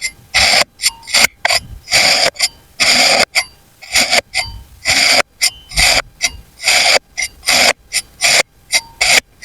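Knife slicing through kinetic sand in a string of short scraping cuts, about one to two a second, each starting sharply.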